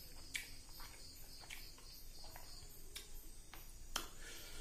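Eating by hand: fingers squishing rice and fish curry on a plate and wet mouth clicks, scattered sharp clicks with the loudest about four seconds in. Under it, a steady high chirping of insects, about four pulses a second.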